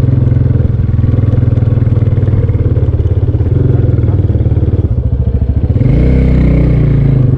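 Motorcycle engine running under way, its exhaust pulsing steadily; about six seconds in the engine note swells and shifts in pitch for about a second and a half.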